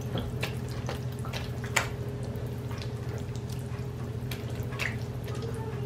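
Silicone spatula stirring a thick, wet chicken and cream of mushroom mixture in a stainless steel bowl: wet squelching with scattered sharp clicks of the spatula against the bowl, the loudest about two seconds in. A steady low hum runs underneath.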